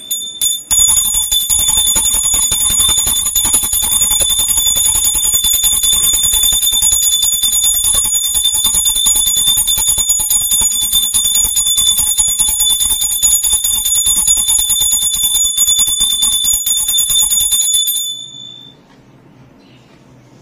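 A small puja hand bell (ghanti) rung rapidly and without pause, a bright ringing of several high tones held steady. It stops suddenly a couple of seconds before the end.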